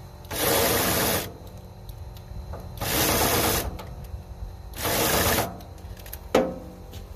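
Electric drill run in three short bursts of just under a second each, spinning the input of a 2000 Murray lawn tractor's hydrostatic transaxle so that it engages and turns the axle, a sign that the drive still builds pressure and holds oil. A single sharp metallic knock near the end.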